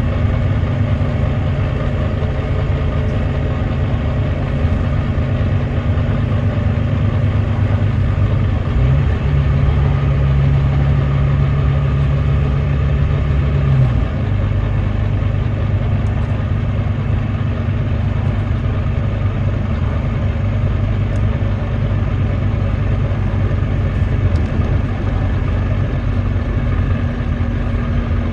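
Volvo D9B 9.3-litre diesel of a Volvo B9TL double-decker bus running under way through its ZF Ecolife six-speed automatic, an engine described as misfiring. After about nine seconds a downshift lifts the engine note, which holds steady and louder for about five seconds, then drops away suddenly.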